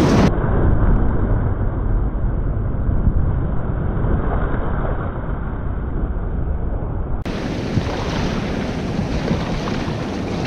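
Breaking surf rushing and churning around a kayak being paddled out through the whitewater, with wind buffeting the microphone. The sound turns duller, its highs cut off, from just after the start until about seven seconds in.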